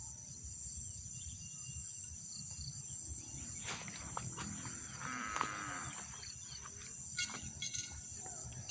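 A cow mooing once, about five seconds in, over a steady low rumble and a high, even insect drone, with a few sharp knocks from handling around it.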